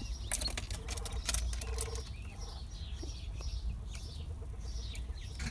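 Quail in their pen making many short, high, downward-sweeping chirps, with scattered small clicks and scratches.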